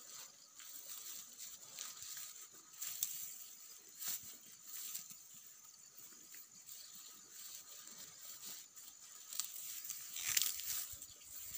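A cow grazing, ripping mouthfuls of grass in irregular tearing crunches, the loudest about ten seconds in.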